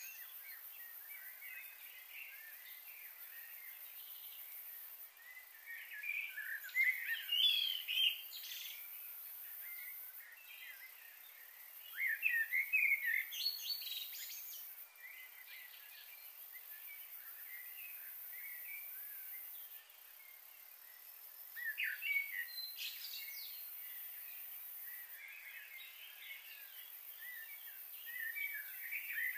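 Wild birds chirping and calling in short bursts over a steady high hiss, with the busiest spells a few seconds apart.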